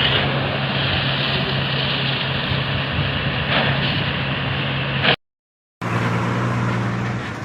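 Heavy vehicle engine running steadily under a loud rushing noise. The sound drops out completely for about half a second around five seconds in, and the engine hum returns at a slightly different pitch.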